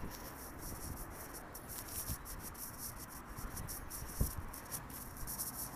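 Faint rustling and scraping of a phone being handled as it is carried on a walk, with a soft thump about four seconds in.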